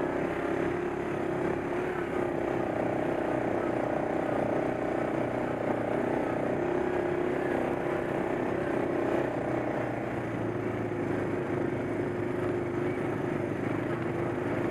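ATV engine running steadily under way on a gravel trail, a constant drone whose pitch stays nearly even.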